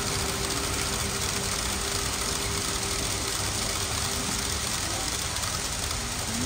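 N-gauge model commuter train running along the layout track: a steady running rumble with a faint hum that fades out about halfway through, over the shop's background noise.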